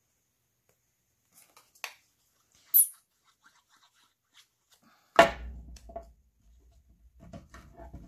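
Tabletop craft handling: a few light clicks and taps, a short high hiss about three seconds in, then a sharp thump just after five seconds with a low rumble after it. Soft, irregular handling noise follows near the end as cheesecloth is worked onto the paper.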